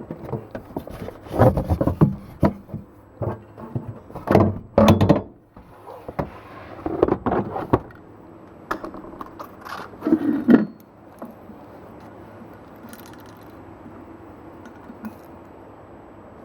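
A run of knocks, scrapes and rattles from things being handled and set down, for about ten seconds, then only a low steady background hum.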